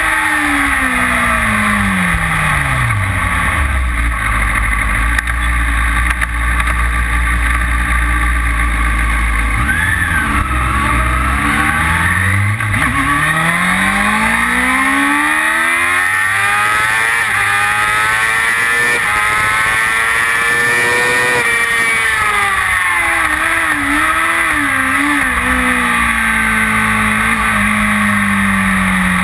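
Kawasaki ZX-6R inline-four engine at full track pace: the revs fall away at first and stay low for several seconds, then climb in a long rise, drop back about two-thirds of the way through, and climb again near the end.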